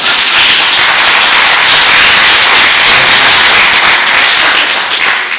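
Audience applauding loudly, a dense clatter of many clapping hands that dies away near the end.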